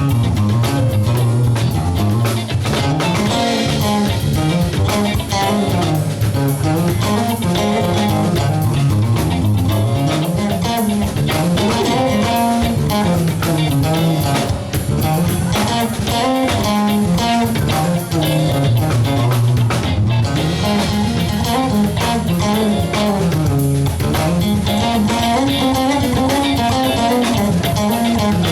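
Live band playing: a bass guitar line rising and falling under electric guitar and drum kit.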